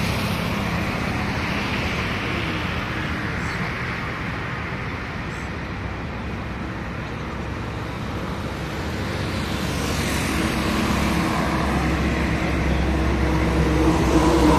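Road traffic going by: cars, motorcycles and heavier vehicles passing, with a steady engine hum that grows louder over the last few seconds as a bus and a van pass close.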